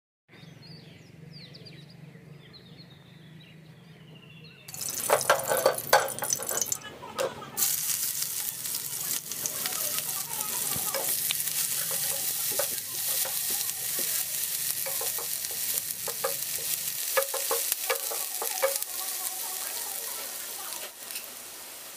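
Sliced onions frying in hot oil in a nonstick pan: a faint low hum at first, then a loud sizzle starting suddenly about five seconds in as the onions go into the oil. The steady sizzle carries on with scattered scrapes and clicks of a spatula stirring them.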